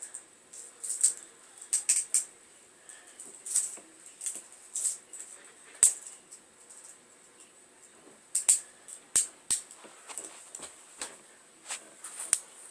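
Toy handcuffs rattling and clicking as they are fastened on behind the back: irregular short metallic clinks, with a few sharper knocks.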